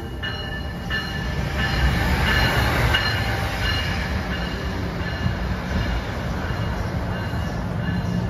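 NJ Transit bilevel passenger coaches rolling past close by along a station platform: a steady rumble of wheels on rail with faint high squealing over it.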